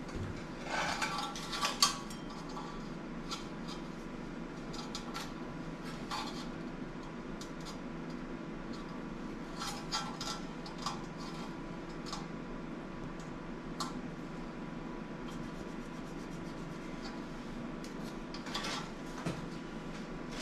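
Scattered light metallic clinks and rattles of steel pieces and tools being handled at a metal-cutting saw, over a steady low hum.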